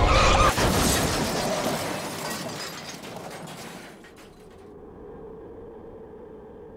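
Car crash: music cuts off with a sudden impact about half a second in, followed by shattering glass and debris that die away over about three seconds, leaving a faint steady hum.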